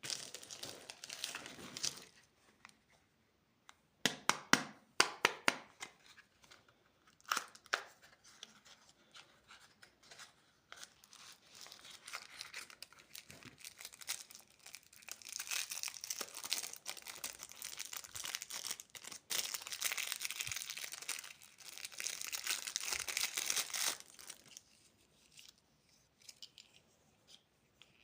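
Candy packaging being torn open and crinkled by hand. There is a burst of crinkling, then a run of sharp snaps and crackles about four seconds in. A long stretch of steady crinkling follows and stops a few seconds before the end.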